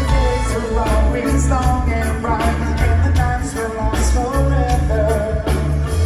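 Live reggae-rock band playing over a concert sound system: a heavy bass line, a steady drum beat and a singing voice.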